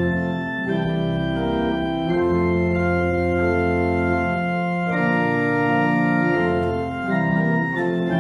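Organ playing slow, sustained chords that change every second or two, at an even level.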